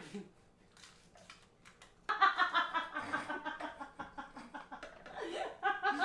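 A person bursting into laughter about two seconds in, a run of quick pulsing laughs that goes on to the end, after a couple of faint clicks in the quiet before.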